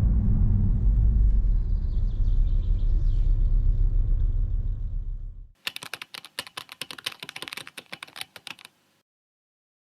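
A car's engine and road rumble, low and steady, fading out about five seconds in. Then comes about three seconds of rapid, sharp clicking like keyboard typing.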